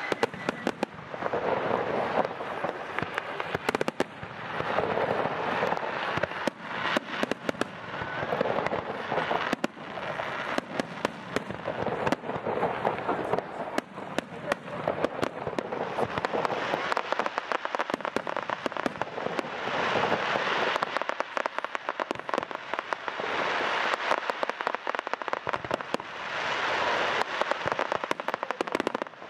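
Aerial fireworks display: a dense run of bangs and pops from bursting shells, with swells of crackle coming in waves every few seconds.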